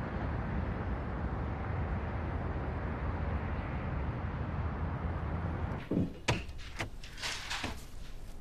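Steady low rumble of city traffic. About six seconds in it gives way to a quick run of sharp clicks and knocks as an apartment door is unlatched and opened.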